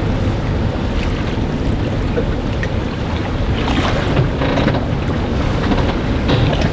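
Strong wind, over 20 knots, rumbling steadily on the microphone on an open boat at sea, with water splashing a few times around the middle and near the end.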